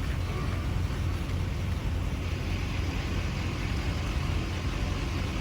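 A vehicle running steadily: an even low rumble with a hiss above it, without change.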